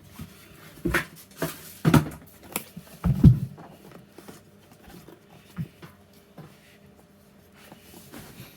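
Handling knocks and thumps from a boxed keyboard being moved and set down, several in the first few seconds with the loudest about three seconds in, then faint rustling and light handling.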